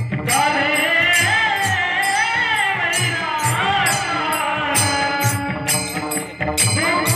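Marathi devotional bhajan: a male lead voice sings long, winding melodic phrases over small hand cymbals and a low drum keeping a steady beat of about two strokes a second.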